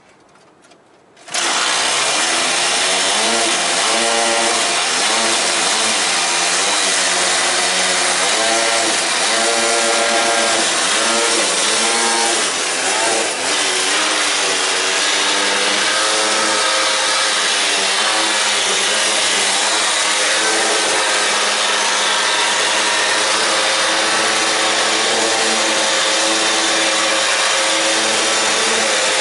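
Small two-stroke gas engine of a quarter-scale RC Chevy pickup, running loud and buzzing like a chainsaw. It cuts in abruptly about a second in, then revs up and down continuously as the truck is driven.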